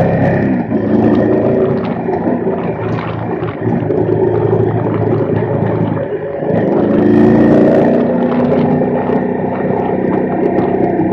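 Large-displacement adventure motorcycle engine running under way. Its pitch drops as the bike slows just after the start and climbs again as it accelerates about six and a half seconds in. Scattered knocks are heard along the way.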